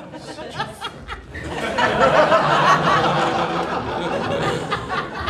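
Comedy club audience laughing at a punchline, the laughter swelling about a second and a half in and carrying on.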